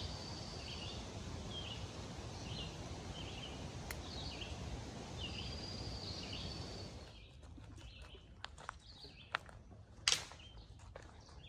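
Birds singing outside, a repeated short chirp and a thin held whistle, over a steady hiss. About seven seconds in it drops to a quieter woodland background with scattered clicks and a sharper knock near ten seconds.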